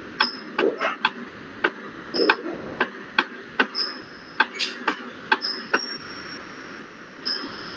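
A series of sharp, irregularly spaced clicks, about a dozen in all, with a few brief high-pitched tones among them.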